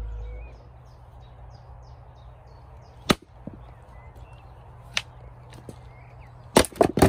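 A hatchet chopping wood on a chopping block: one sharp chop about three seconds in, another about five seconds in, then a quick run of knocks near the end. Birds chirp faintly.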